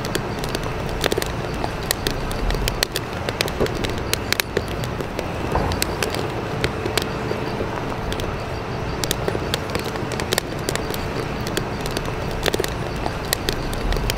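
Steady rushing background noise with frequent small clicks and crackles throughout, over a faint steady hum.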